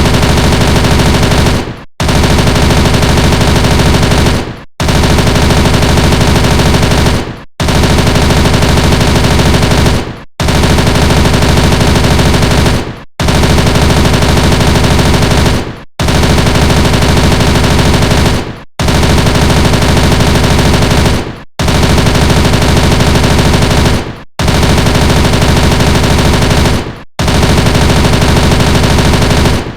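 MP5 submachine gun in fully automatic fire, in long bursts of rapid shots. Each burst lasts close to three seconds, fades out briefly, and the next begins, about ten times over.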